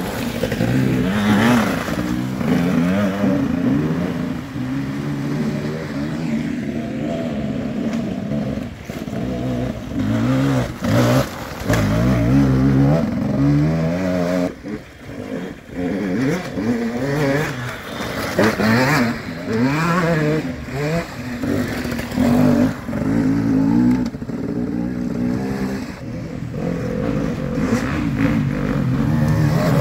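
Several enduro dirt bikes riding past one after another, their engines revving up and dropping back repeatedly as the riders work the throttle, with a short lull midway before the next bikes come through.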